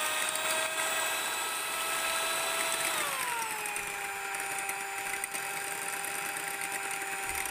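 Electric hand mixer running, its beaters whisking egg whites, with a steady motor whine. The pitch drops about three seconds in and holds at the lower note.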